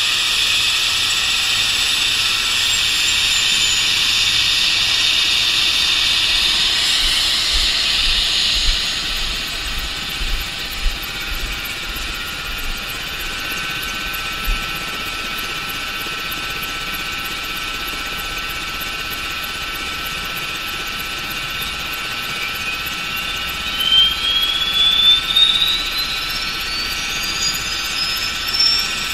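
Leonardo AW139 helicopter's twin PT6C-67C turboshaft engines whining as the main rotor turns during start-up, with a whine rising in pitch over the last several seconds. A few low bumps are heard in the middle and near the end.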